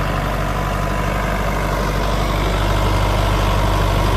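Sonalika DI 55 Tiger tractor's diesel engine running steadily at about 1200 rpm in first high gear, getting slightly louder near the end.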